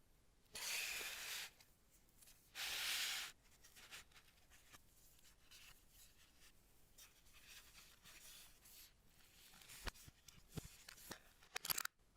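Plastic packaging or protective film being torn or peeled in two short pulls, followed by light rustling and a few small clicks and taps of handling.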